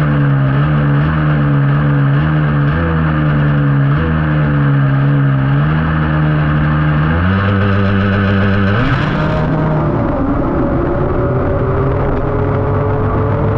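Snowmobile engine running close to the microphone, its pitch stepping up and down with the throttle while the sled is held at the start. About nine seconds in it launches, and the engine note climbs steadily as the sled accelerates away.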